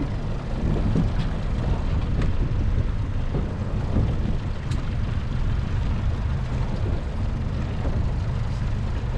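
Small boat's outboard motor running steadily under way, a continuous low rumble with a few faint clicks over it.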